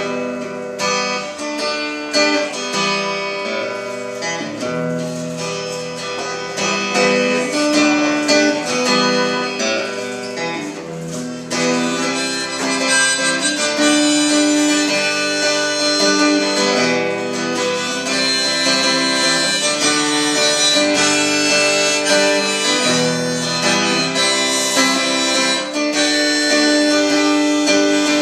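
Acoustic guitar strummed in a steady rhythm while a harmonica plays long held notes over it: the instrumental intro of the folk song before the singing begins.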